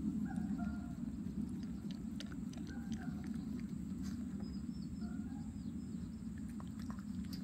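Small dog licking and smacking its lips as it is spoon-fed broth, with a few soft clicks, over a steady low hum.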